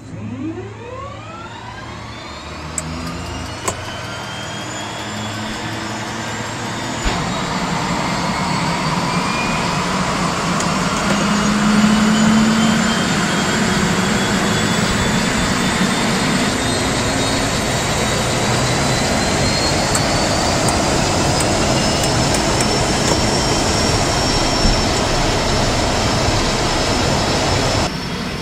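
Pilatus Porter's turboprop engine starting: a rising whine as it spools up, growing louder about seven seconds in, then settling into a steady running turbine whine that climbs slowly to a high, even tone.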